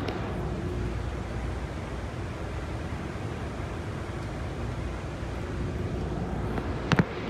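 Steady low rumble and hiss inside a PATH PA-5 subway car standing in the tunnel: the car's ventilation and onboard equipment running while the train is held. A couple of sharp knocks near the end.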